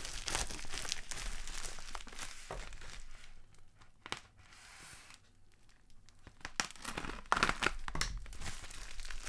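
Silver foil bubble-wrap mailer crinkling and tearing as it is pulled and wrestled open. It goes quieter for a few seconds in the middle, then sharp, loud crinkling picks up again.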